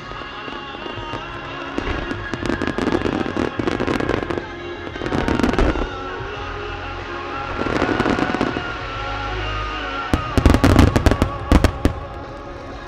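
Starmine fireworks barrage: bursting shells give rapid pops and crackles, then a dense run of loud sharp bangs about ten seconds in. Music plays steadily underneath.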